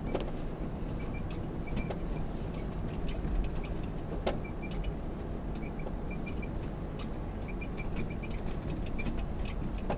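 Lexus GX460 driving slowly over rough, shell-strewn beach sand, heard inside the cabin: a steady low road rumble with frequent irregular sharp clicks and rattles.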